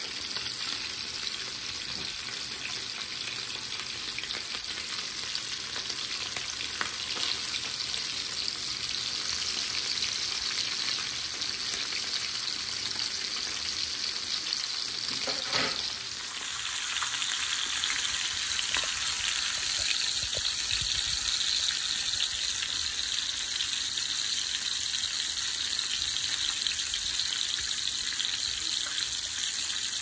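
Flour-dredged flatfish frying in hot oil in a pan, a steady dense sizzle. The sizzle drops briefly about 16 seconds in and comes back a little louder.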